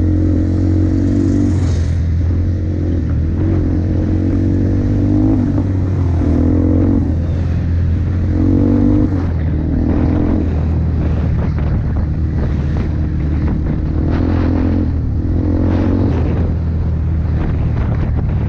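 Single-cylinder four-stroke engine of a 2004 Yamaha Bear Tracker ATV with an FMF aftermarket exhaust, running steadily while being ridden. A higher engine note swells and fades irregularly every second or two.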